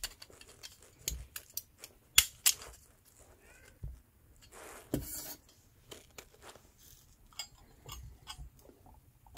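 Scattered light metal clicks and clinks as the sheet-metal windshield of a Barthel petrol camping stove is handled and lifted off, with a short hiss about five seconds in.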